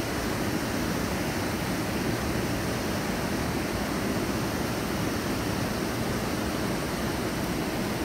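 Steady rush of river water pouring over a low-head dam, an even roar with no breaks.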